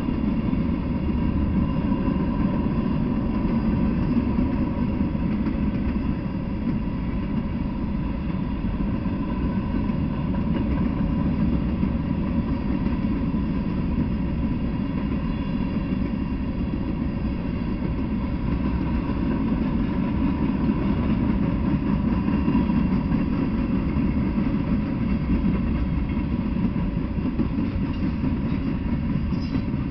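Freight train rolling past, its covered hopper cars and then autorack cars making a steady rumble of wheels on rails, with a faint steady high tone above it.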